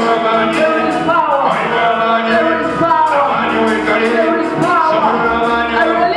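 Church worship music: singing over a band, with a steady drumbeat of a little over two beats a second.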